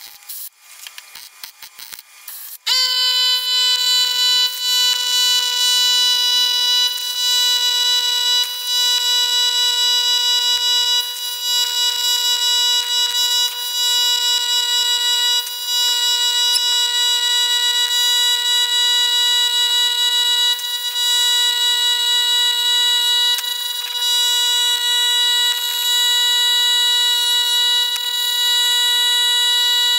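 Faint crackling clicks, then about two and a half seconds in a loud, steady electronic tone at one fixed pitch cuts in and holds without changing.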